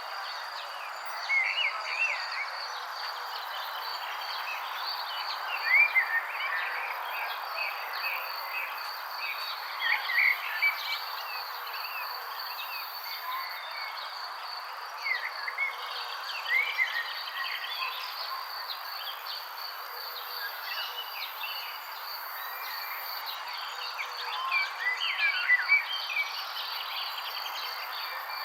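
Songbirds chirping in short bursts of quick rising and falling notes, in clusters a few seconds apart, over a steady hiss and a continuous high insect drone.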